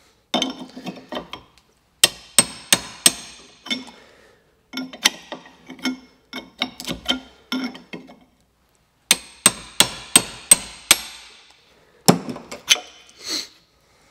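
Hammer striking a steel round punch to chip and drive the stuck, epoxied stub of an old wooden handle out of a hewing hatchet's eye. The strikes are sharp and metallic with a brief ring, and come in quick runs of several blows with short pauses between.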